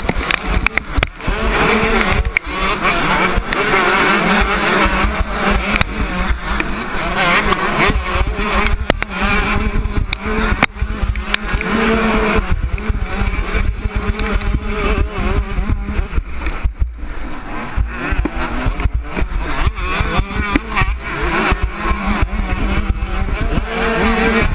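Motocross bike engines revving hard and rising and falling in pitch as a pack of dirt bikes races together, heard from the rider's own helmet-mounted camera with a heavy low wind rumble and jolts.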